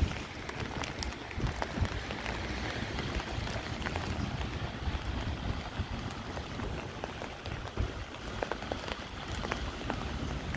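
Wind buffeting the microphone in uneven gusts over a steady hiss, with scattered sharp ticks throughout.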